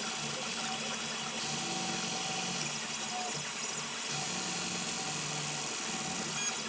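LulzBot 3D printer running a print: its stepper motors hum in tones that shift every second or so as the print head moves, over a steady high hiss.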